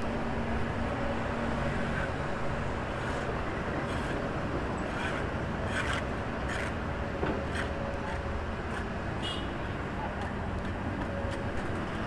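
Kobelco SK200 hydraulic excavator's diesel engine running steadily as the machine works its bucket, with a few short knocks and clanks along the way.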